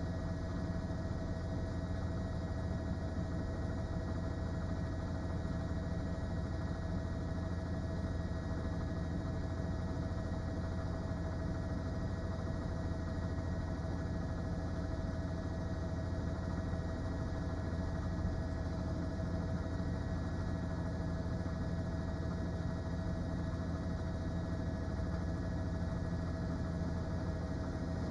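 Steady low hum with several faint steady tones above it, unchanging throughout.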